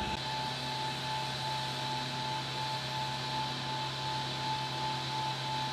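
Steady whining drone of aircraft machinery on an airfield flight line: an even rushing noise with a constant high whine and a low hum underneath.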